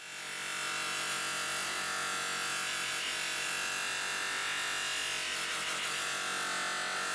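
Bench polisher running with a steel rod pressed against its spinning grey polishing wheel: a steady motor whir with a rubbing hiss of metal on the wheel, coming up over the first second.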